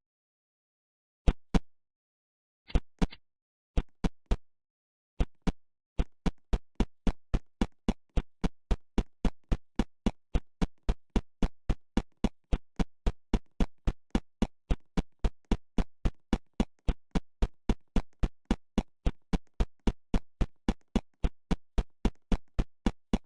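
Sharp percussive hits with dead silence between them, like a drum-machine beat: a few scattered pairs at first, then about six seconds in a steady run of about three hits a second.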